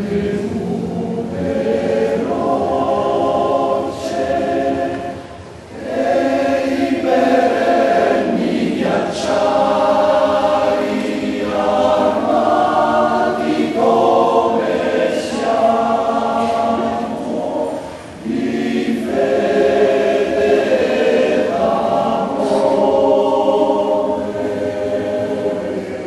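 Male Alpini choir singing a cappella in several-part harmony, in long held phrases with short breaks about six seconds in and again about eighteen seconds in.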